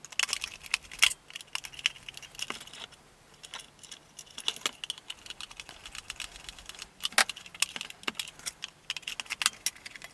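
Hand screwdriver driving small screws into the plastic case of a vintage Action Man Field Radio toy, with scattered light clicks and taps as the tool and the plastic case are handled.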